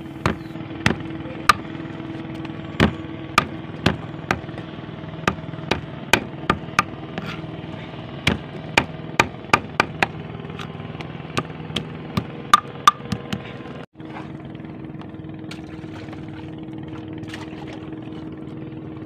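Knife blade chopping small fish on a wooden block, sharp uneven knocks about two a second, over a steady engine hum. The chopping stops about 14 seconds in, leaving the hum.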